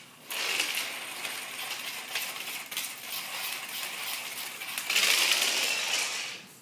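Marbles rattling and clicking inside a small red plastic holder as it is worked over a tile floor: a dense, continuous rattle that grows louder for its last second or so.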